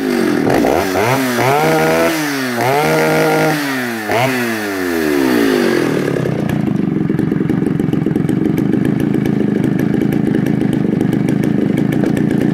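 Stihl 08S two-stroke chainsaw revved up to full speed and let back down about three times, then settling to a steady idle about six seconds in.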